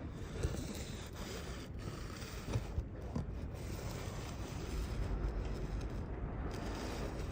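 Strong typhoon wind gusting, with a steady low rumble that swells near the end. Loose sheet-metal panels creak and scrape in it, with a few sharp knocks about half a second in and twice in quick succession near the middle.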